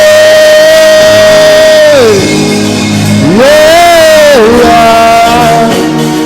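Worship music: a singer holds a long note for about two seconds, slides down, then rises into another held note, over a sustained instrumental accompaniment.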